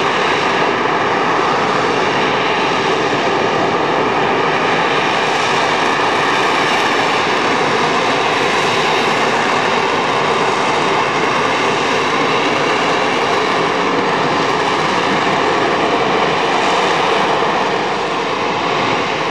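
AV-8B Harrier jump jet hovering, its Rolls-Royce Pegasus engine running as a steady, loud jet noise with a few faint constant whining tones in it.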